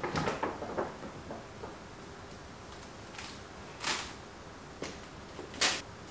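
Handling sounds of a paper shopping bag and a chain-strap handbag on a countertop: a cluster of small rustles and knocks at first, then two short, sharp rustles, the louder one near the end as the handbag is set down.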